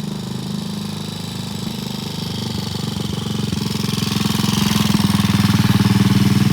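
Triumph T20M Tiger Cub's single-cylinder engine running as the motorcycle rides in, with a rapid, even firing beat that grows louder as it approaches.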